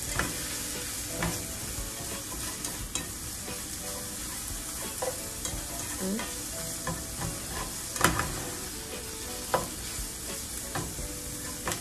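Diced bacon and onions sizzling in a frying pan while being stirred with a spatula: a steady frying hiss with scattered clicks and scrapes of the spatula against the pan, the sharpest about eight seconds in.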